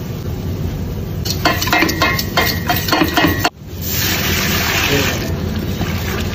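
A wire whisk clicking repeatedly against a stainless steel pot as it stirs, then, after a sudden break, a steady splashing hiss as milk is poured from a jug into the pot.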